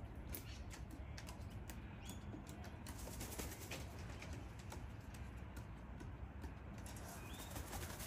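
Quiet outdoor bird ambience: scattered soft clicks and ticks and a few faint short chirps over a low steady rumble. There are no loud cockatoo screeches.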